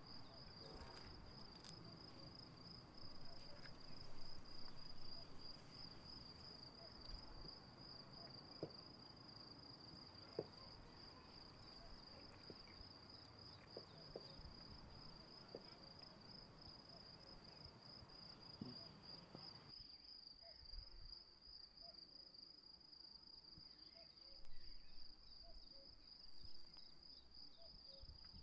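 Crickets chirping faintly in a continuous high trill, with soft clicks and rustles from people eating by hand during the first two-thirds.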